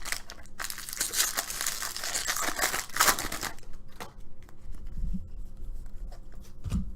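Foil wrapper of a Bowman Jumbo pack of baseball cards being torn open and crinkled, loudest about one to three and a half seconds in, followed by softer crinkles and clicks.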